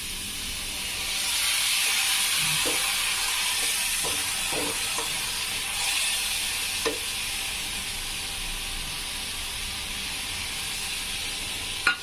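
Water just poured into a hot frying pan of onions, tomatoes and spices, hissing and sizzling. The sizzle swells about a second in and slowly eases off, with a few light taps of a metal spatula against the pan.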